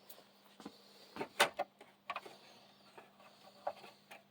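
Light clicks and knocks from the plastic and metal parts of an opened Xbox One console being handled, about seven scattered taps with the loudest about a second and a half in.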